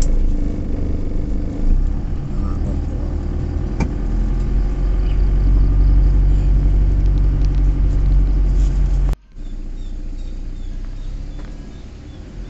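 Car driving slowly along a narrow road, heard from inside the cabin: a steady low engine and road rumble. About nine seconds in the sound cuts off abruptly, and a quieter rumble follows.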